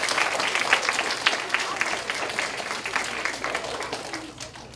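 A large audience of schoolchildren applauding, the clapping dying away near the end.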